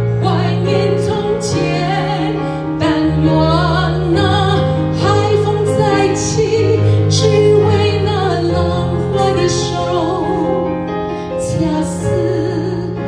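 A woman singing a Mandarin song live into a microphone, holding notes with vibrato, over an instrumental accompaniment with piano and bass.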